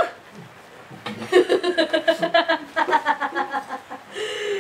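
A woman laughing, a run of quick ha-ha pulses lasting about three seconds that starts about a second in.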